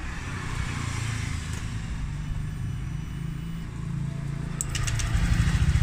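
Honda Vario scooter's single-cylinder engine running with an even low pulse, a few clicks about four and a half seconds in, then running louder from about five seconds in. It runs on a newly replaced fuel pump.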